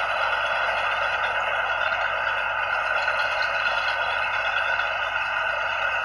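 Combine harvester running steadily with a continuous mechanical rattle.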